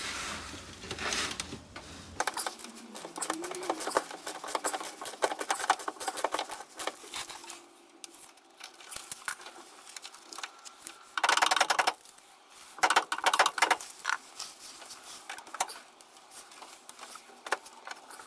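Hand ratchet clicking in quick runs, with metal tool clatter, as a 13 mm anti-roll bar mount bolt under a BMW E46 is undone. The loudest bursts come about 11 and 13 seconds in.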